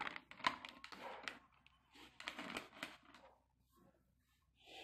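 Quick clicks and rustling from a hand pressing the buttons of a Hantek 2D82 Auto handheld oscilloscope, in two short clusters, over a faint steady low hum of the car's engine idling.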